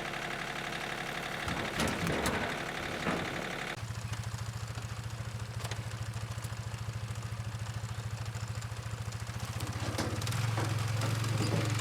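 An engine idling steadily. About four seconds in, the sound switches abruptly to a deeper, evenly pulsing idle. A few knocks come around two to three seconds in.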